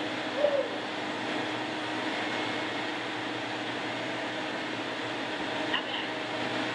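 Steady hum and hiss of running workshop machinery, with a constant low tone.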